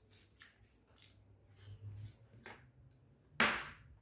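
Aluminium foil crinkling in short rustling bursts as bare hands mix rice and adobo on it, with a much louder burst about three and a half seconds in.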